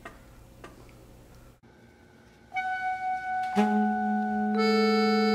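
Quiet room tone with a few faint clicks, then music: steady held tones enter one after another, a new one about every second from about two and a half seconds in, building a sustained chord.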